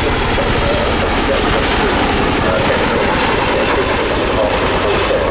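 RAF Chinook tandem-rotor helicopter flying past. Its rotors beat fast, with the steady high whine of its turbine engines over the top.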